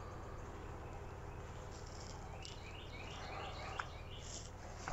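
Faint outdoor ambience with a steady low hum; about two seconds in, a bird sings a quick run of about seven short falling chirps that stops near the end.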